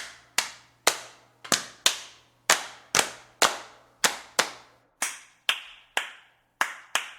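Body percussion: sharp hand claps in a steady rhythm, about two strokes a second, with no music or singing under them.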